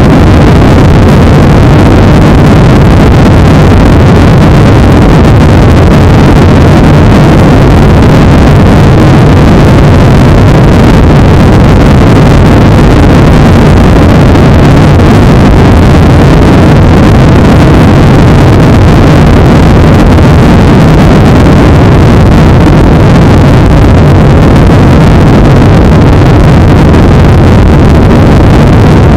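Cabin noise of a Boeing 737-800 climbing out after takeoff: its CFM56-7B turbofan engines and the rushing air make a loud, steady low drone that never lets up.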